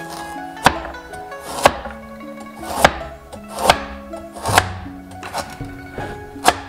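Chinese cleaver chopping carrots on a plastic cutting board: about seven sharp chops, roughly one a second. Instrumental music plays underneath.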